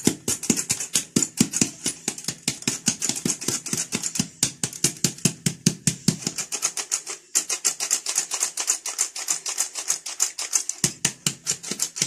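Flour being sifted through a sieve: a fast, even rattling of about six strokes a second, with two short breaks about four and seven seconds in. The flour is sifted a third time to work air into it.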